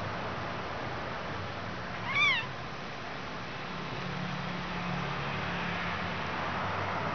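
A kitten gives a single short, high mew about two seconds in, rising then falling in pitch, over a steady background hiss.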